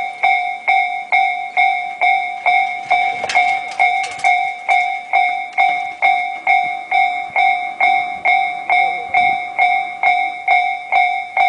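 Japanese railway level-crossing warning bell ringing in a steady clang-clang, about two strikes a second, the signal that a train is approaching and the crossing is closed.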